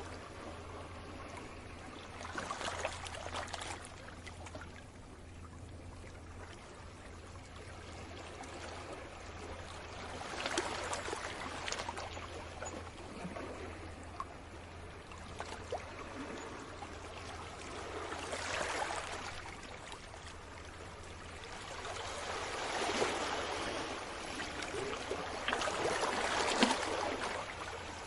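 Small sea waves washing in on the shore and drawing back, a swell of water noise every few seconds with fine trickling crackle as the water runs off. A steady low hum runs underneath.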